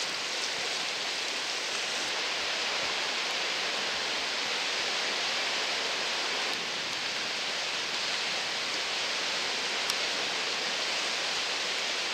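Steady hiss of small surf waves breaking and washing over a shallow sandy beach.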